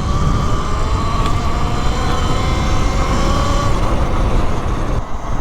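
Electric motor of a Talaria Sting R e-moto whining while it is ridden along. Its pitch edges up and falls back over a steady low rumble.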